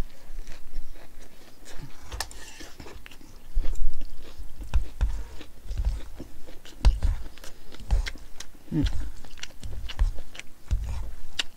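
Close-miked chewing of a mouthful of lettuce wrap with grilled meat: wet crunching and smacking, with scattered sharp clicks.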